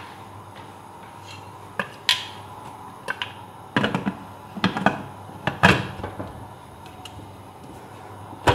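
Aluminium pressure cooker lid being fitted onto the pot and locked, a string of metal knocks and clatters, the loudest about five and a half seconds in.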